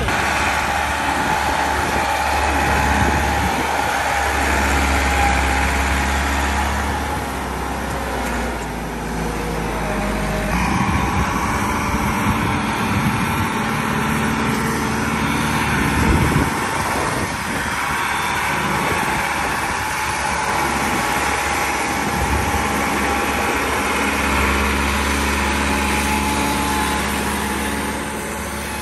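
Massey Ferguson 385 tractor's diesel engine running steadily as it hauls a loaded soil trolley over a dirt track. The deep engine note drops about a third of the way in and strengthens again near the end.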